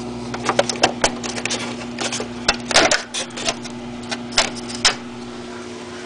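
Light plastic and metal clicks, taps and knocks from hands working at a window air conditioner's front and control knobs, with a louder clatter a little before halfway, over a steady low electrical hum.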